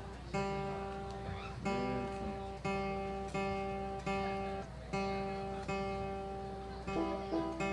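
Acoustic guitar strummed on the same chord about once a second, each strum left to ring out, with a few single notes picked near the end: a player checking tuning or noodling before a song starts.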